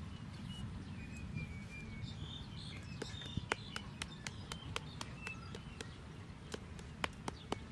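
Kitchen knife hacking into a peeled green mango: crisp, sharp ticks of the blade biting the firm flesh, about two or three a second from about three seconds in. Birds chirp faintly before the cutting starts.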